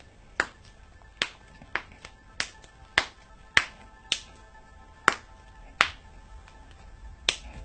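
A person's joints cracking one after another: about ten sharp pops at uneven intervals, one every half second to a second and a half, over faint music.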